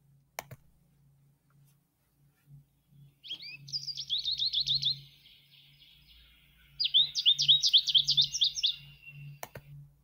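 American goldfinch song played from a recording: two rapid twittering phrases of many quick sliding notes, the second one longer and louder. Short clicks come near the start and near the end.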